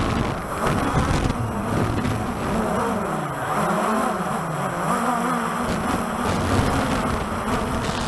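Walkera TALI H500 hexacopter's rotors whirring. Their pitch rises and falls as the motors pulse to hold position against strong gusts, with wind buffeting the microphone in a low rumble.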